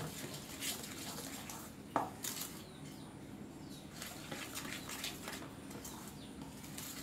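A metal spoon stirring thick chocolate cake batter in a stainless steel bowl, scraping and clinking against the bowl in irregular strokes, with one sharper clink about two seconds in.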